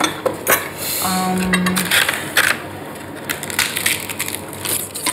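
Crisp fortune cookies being cracked and broken open by hand, a run of irregular dry crackles and snaps. A short low hum sounds once, about a second in.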